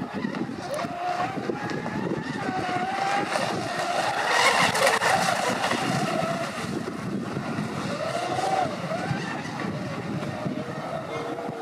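RC model powerboat's motor running with its pitch rising and falling as the throttle changes, loudest as the boat passes close about four to five seconds in.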